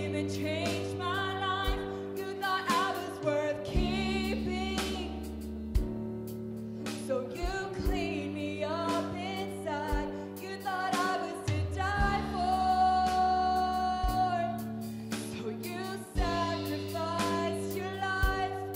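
Live gospel worship band: a woman singing lead over piano, bass guitar and drums, with a slow beat of drum hits about every two seconds. She holds one long note a little past the middle.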